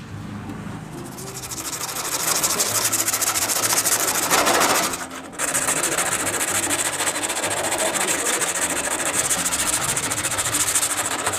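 Sandpaper on a hand block rubbing quickly back and forth over the painted steel leg shield of a Vespa LX scooter, a steady scratching that stops briefly about five seconds in. The paint is being sanded down to show up the dents to be knocked out from inside.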